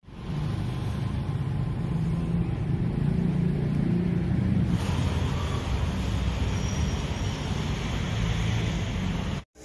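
A vehicle engine running with road traffic noise, steady and rumbling. It grows brighter and hissier about halfway through and cuts off abruptly just before the end.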